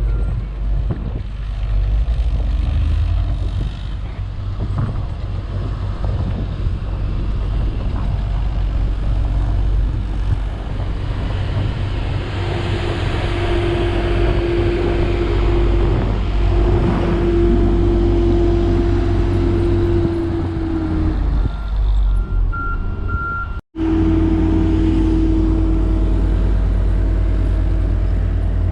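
Heavy diesel road-construction machinery and trucks running with a steady low rumble; a steady hum joins about halfway through, and reversing beeps sound near the end.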